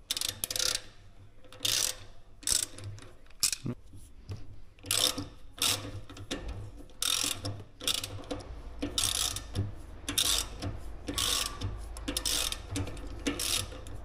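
Hand ratchet clicking in repeated short strokes, roughly one to two a second, as the governor of a diesel injection pump is unbolted.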